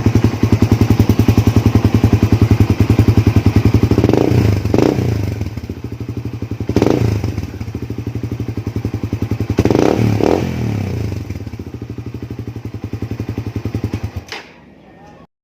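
Suzuki Raider 150's single-cylinder four-stroke engine running through an Apido aftermarket exhaust pipe, idling with an even pulsing beat and revved in several short blips in the middle. The engine sound stops shortly before the end.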